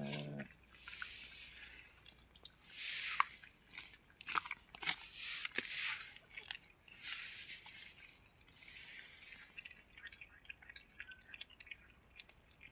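A cat eating, with irregular crunches, sharp clicks and wet chewing sounds.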